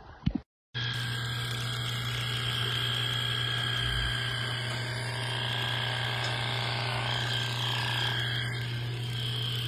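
Electric livestock clippers running steadily as they shave a cow's hair coat, with a constant low motor hum that starts just under a second in.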